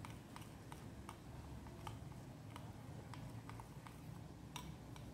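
Metal spoon clicking and scraping against a glass bowl while stirring a thick yogurt-and-spice marinade: faint, irregular light ticks, about three a second, with one sharper clink near the end.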